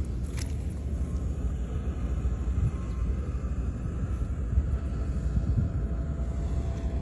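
Steady low outdoor rumble, with a few faint clicks about half a second in.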